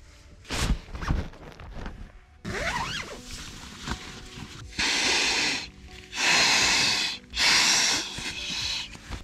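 Gear rustling and being handled, then, starting about five seconds in, several long breaths blown by mouth into a Flextail inflatable pillow to inflate it. Background music plays underneath.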